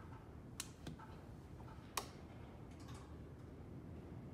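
A few faint, sharp clicks from a wall-mounted level 2 EV home charger as its power button is pressed and the unit switches on, the sharpest about two seconds in.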